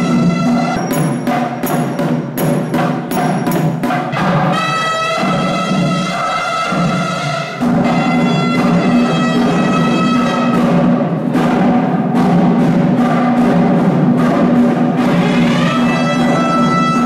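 Nadaswaram and thavil temple music: a reed horn plays a melody over a steady drone, with sharp drum strokes throughout.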